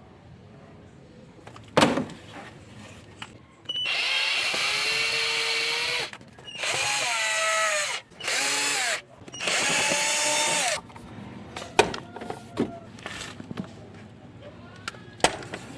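Cordless electric screwdriver or drill running in four bursts, its motor pitch gliding up and down as it backs out the fairing screws of a Suzuki Burgman Street EX scooter. A sharp knock comes about two seconds in, and a few clicks of handling follow the bursts.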